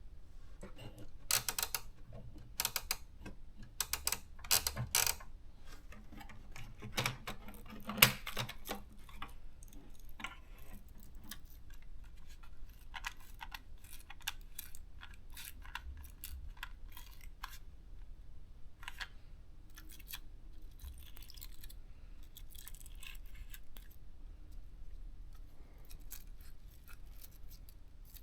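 Scattered sharp plastic clicks and rattles of a Panasonic thermal typewriter's correction-tape cartridge being handled and refitted by hand. The clicks come thick for the first nine seconds or so, then sparser and fainter.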